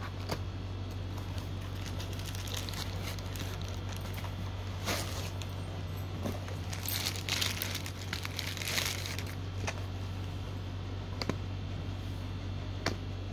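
Clear plastic wrapping crinkling and rustling as a plastic lunch box is pulled out of its cardboard packaging and handled, with a few light knocks and clicks. A steady low hum runs underneath.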